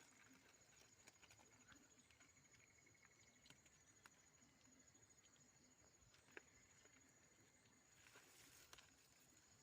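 Near silence: faint night-time outdoor background with a thin steady high tone and a few soft ticks.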